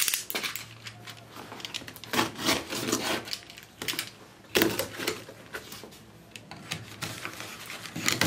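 Box cutter slicing through packing tape along the seam of a cardboard box: a string of irregular, scratchy scrapes and rips, with cardboard rustling.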